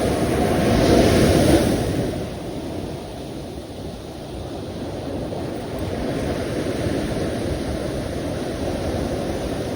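Sea surf: a wave breaks about a second in, the loudest and hissiest moment, then the wash dies away and the surf builds steadily again.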